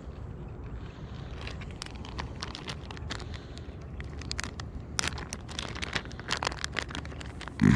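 Plastic soft-bait package crinkling and crackling as it is handled, in a quick run of sharp crackles starting about a second and a half in, over a steady low rumble. A loud thump comes right at the end.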